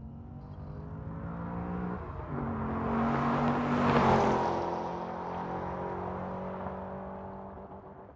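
A car engine running as it passes by: it swells to its loudest about four seconds in, with a steady drone, then fades away.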